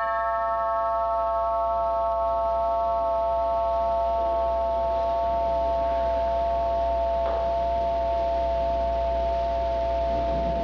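A held electronic bell-like chord: several steady pitches ring on together without fading, over a low steady hum.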